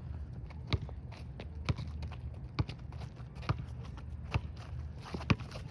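Basketball being dribbled, bouncing about once a second in an even rhythm, with lighter taps between the bounces.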